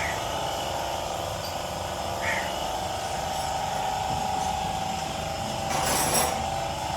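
A steady mechanical hum, with a short hiss about six seconds in.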